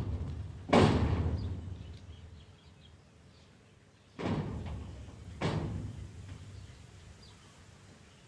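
Three heavy bangs, the first about a second in and the loudest, the next two close together near the middle; each dies away slowly over a second or two.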